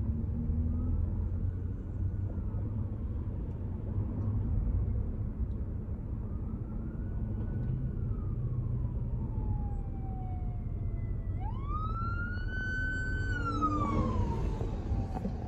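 Emergency vehicle sirens wailing in slow rising and falling sweeps, faint at first. About eleven seconds in, a louder siren sweeps up quickly, holds its pitch, and falls away near the end, over a steady low rumble of traffic.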